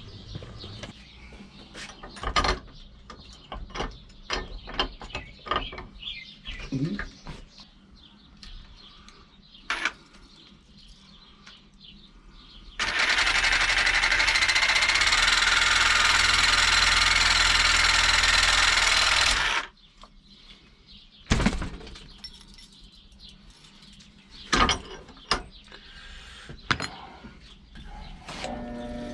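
Reciprocating saw (Sawzall) cutting through the too-long metal shaft of a trunk lock. It runs for about seven seconds in the middle, starting and stopping abruptly, with scattered clicks and knocks of parts being handled before and after.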